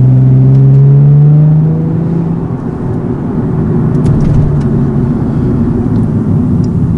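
Nissan 370Z's 3.7-litre V6 through a Speed Daddy full aftermarket exhaust, pulling under acceleration with its note rising in pitch. About two seconds in it lets off and settles into a lower, steady running note.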